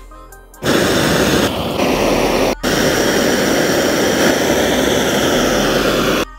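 Handheld gas torch hissing loudly and steadily as it melts silver in a crucible. It starts about half a second in, breaks off for an instant near the middle, and stops just before the end. Background music plays briefly before the torch comes in.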